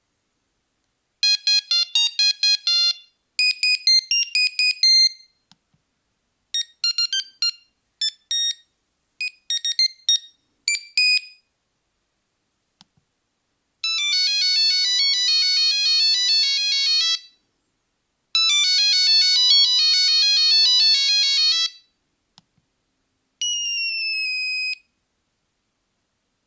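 Nokia 3310 mobile phone playing its monophonic ringtones: several different tunes of high, beeping single notes, one after another, with short silences between them. Two of the tunes, in the second half, are fast runs of rapidly repeating notes.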